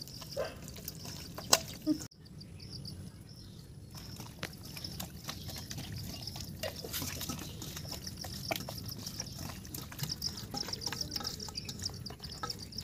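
Wet squelching and smacking of a hand kneading masala-marinated raw chicken pieces in a stainless steel bowl, many small irregular squishes, with a high pulsing trill in the background.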